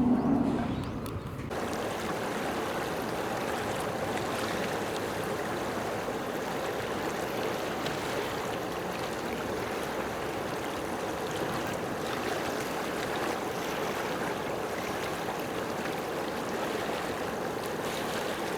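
A steady, even rushing noise that starts abruptly about a second and a half in, after a brief louder low sound.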